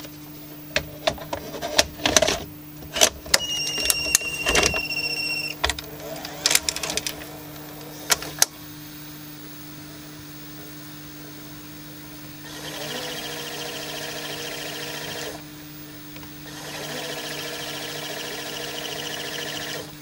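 Panasonic NV-F65 VHS video recorder's mechanism taking in a cassette: a quick series of clicks and clunks with a brief high whine as the tape is drawn in and seated. Then two spells of motor whirring, each about three seconds, over a steady hum.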